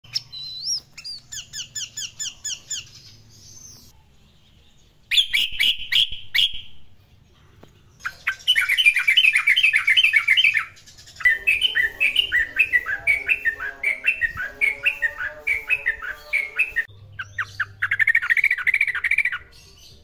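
Yellow-vented bulbuls (trucukan) calling and singing: short sharp notes and quick chattering, warbling phrases, in several separate bursts with abrupt breaks between them.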